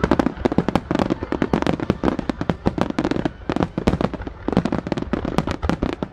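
Japanese star mine fireworks barrage: shells launching and bursting in rapid, overlapping succession, many sharp cracks and booms a second with no break.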